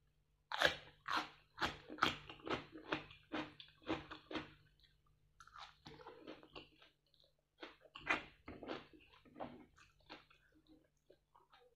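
A person chewing and crunching a mouthful of food, with a quick run of crisp crunches at about two or three a second, then softer chewing, and another crunchy run about eight seconds in.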